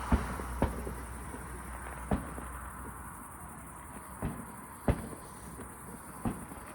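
Aerial firework shells bursting: about six sharp bangs at uneven intervals over a steady high hiss.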